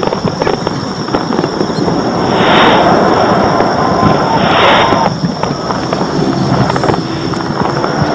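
Fireworks display going off: a dense, continuous run of crackles, pops and bangs, with two louder rushing bursts of crackle about two and a half and four and a half seconds in.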